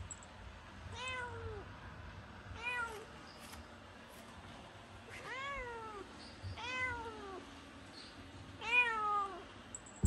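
A black domestic cat meowing five times, every second or two. Each meow rises and then falls in pitch, and the last one is the loudest.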